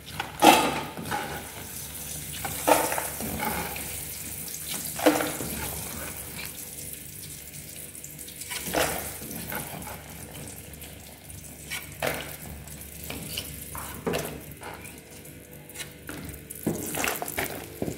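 Perforated metal spoon knocking and scraping against a metal frying pan and strainer bowl every two to three seconds while fried dried chillies are scooped out of hot oil. A steady faint sizzle of the oil runs underneath.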